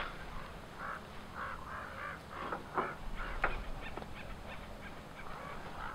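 Canvas drop cloth rustling, with a few short scrapes and clicks, as it is rolled up and tucked by hand. Birds call repeatedly in the background.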